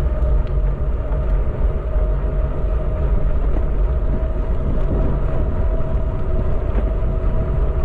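Wind noise on the microphone and tyre-on-road noise from a moving RadWagon 4 electric cargo bike, heaviest in the low range, with a steady thin tone running through it.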